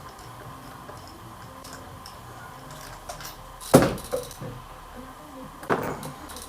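Metal hand tools clinking and being handled, with two sharp metallic clanks, one a little under four seconds in and another near the end.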